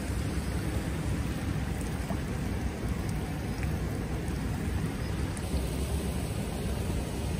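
Steady rush of flowing water, with a low, unsteady rumble underneath.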